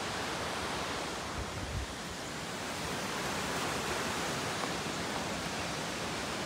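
Steady rushing of a mountain stream, an even noise with no pitch, with a brief low thump about a second and a half in.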